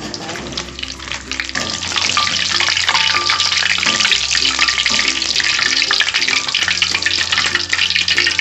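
Hot oil sizzling and crackling in an aluminium wok as fried emping (melinjo nut crackers) are lifted out with a wire mesh strainer. The sizzling grows louder about two seconds in. Background music with a steady bass line plays underneath.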